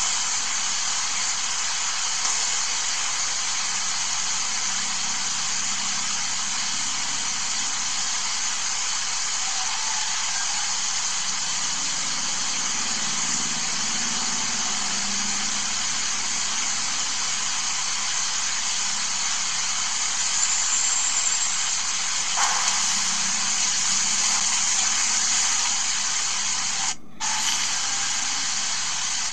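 Steady rushing hiss of air from electric fans running in a large hall, with a brief dropout near the end.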